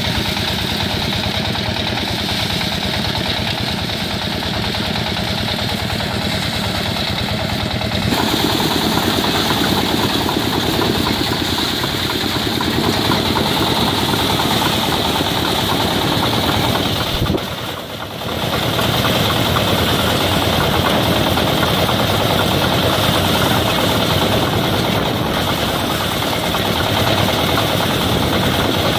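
Engine-driven soya bean thresher running: its small engine and threshing drum make a steady mechanical din as bean plants are fed in. The noise gets louder and rougher about eight seconds in and dips briefly past the middle.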